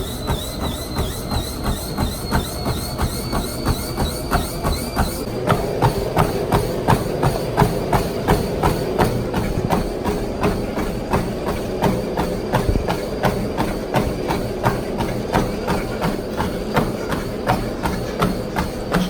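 Treadmill running at speed: a steady motor hum and belt noise, with running footfalls of Nike Air VaporMax 3 shoes striking the deck about three times a second. A high motor whine wavers with each stride and rises slightly, then drops away about five seconds in, and the footfalls grow louder from there.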